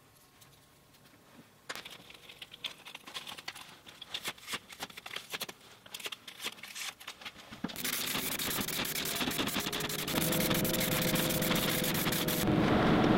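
Small clicks and rustles of plastic pieces being handled on a paper plate. Then, from about 8 s, the fast rattle of an aerosol clear-coat spray can being shaken, over a steady rushing noise that grows louder near the end.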